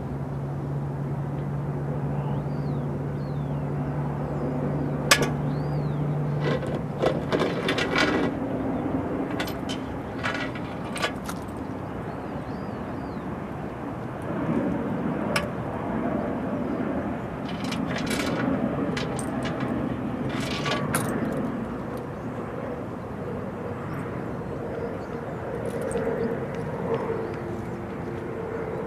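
Outdoor ambience: a steady rumble with a low engine-like hum that fades about six seconds in, scattered sharp clicks and knocks in small clusters, and faint high chirps.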